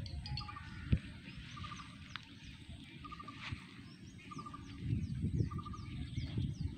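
Birds calling in open countryside: a short trilled call repeats about once a second, and from about four seconds in a run of quick, high, falling chirps joins it. A low rumble swells in the second half.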